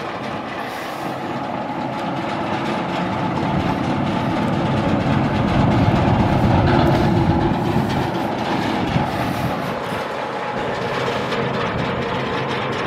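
Natural gas engine driving an oil-well pump jack, running with a steady fast low chugging, growing louder toward the middle and easing off again near the end.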